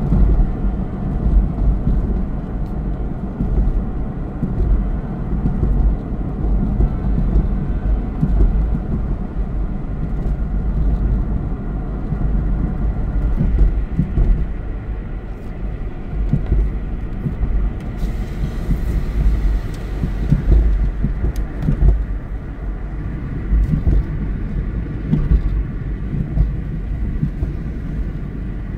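A car driving on a gravel road, heard from inside the cabin: a steady low road rumble and tyre noise, with small scattered clicks.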